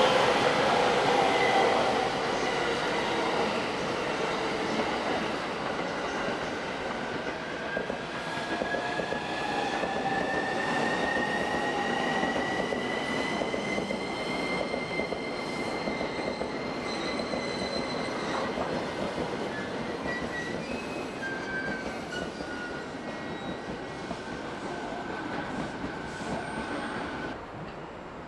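JR East electric commuter train moving past, its wheels and running gear rolling with a high whine that climbs slowly in pitch midway and then holds. The sound fades gradually as the train goes, then drops suddenly near the end.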